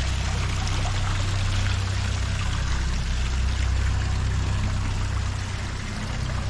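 Steady rushing of flowing water, an even hiss with a constant low rumble underneath.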